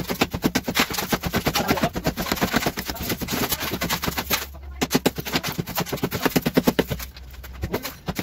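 Rapid, steady run of hammering impacts, many a second, with a low hum underneath. It breaks off briefly about four and a half seconds in and again near the end.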